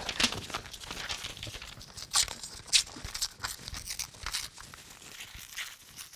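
A sheet of paper being torn by hand in a series of short, uneven rips, the sharpest about two and three seconds in.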